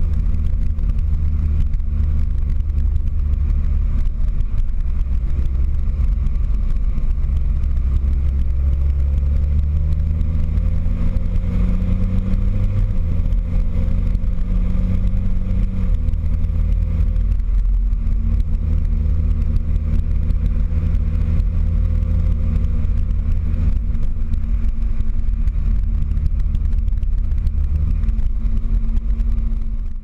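JCB Fastrac 3230 tractor's diesel engine running steadily under load as the tractor drives across a paddock, heard from the bonnet as a heavy low rumble. The engine note climbs slowly for several seconds in the middle, then drops back, and the sound fades out at the end.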